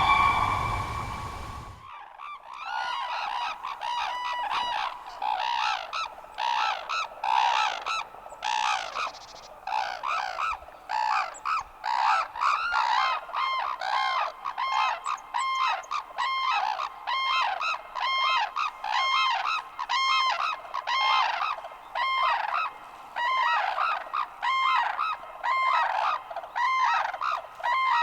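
A flock of cranes calling: many short, honking calls, overlapping at first and then running on steadily at about two calls a second. A louder call from a separate recording fades out in the first two seconds.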